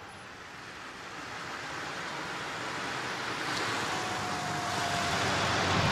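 Mercedes-Benz W123 coupé driving up toward the listener, its tyre and engine noise growing steadily louder as it approaches. A faint engine note sinks slightly in pitch near the end as it comes close.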